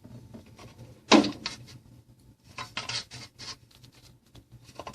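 Light handling noises: a few scrapes, knocks and rustles, the loudest about a second in, with more clusters of clicks later, over a faint low hum.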